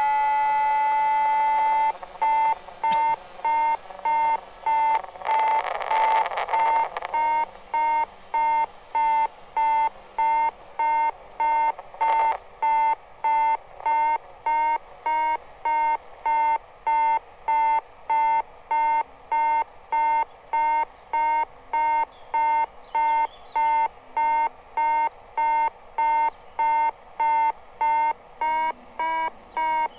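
Electronic altimeter tone from the multirotor's telemetry: a steady beep-tone that breaks into regular beeps about two seconds in, a little over one a second, rising slightly in pitch near the end. A brief rush of noise comes about five seconds in.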